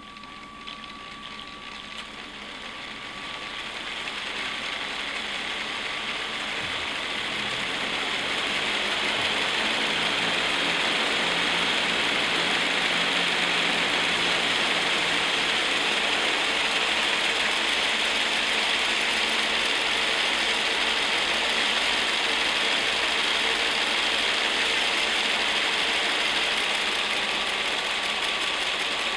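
Motors and gears of a Lego Technic V-22 Osprey model whirring as they drive the rotors. The sound grows louder over about the first ten seconds, then runs steadily.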